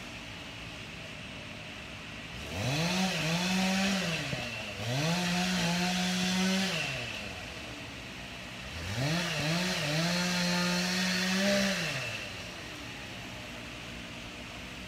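Chainsaw revving up three times, held at full speed for about two seconds each before dropping back to idle.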